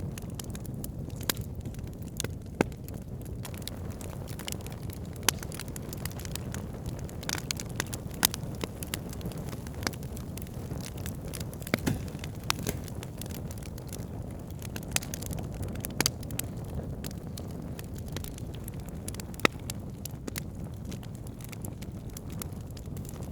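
Wood campfire burning: a steady low rumble of flame under sharp, irregular crackles and pops from the burning wood, a few of them louder snaps.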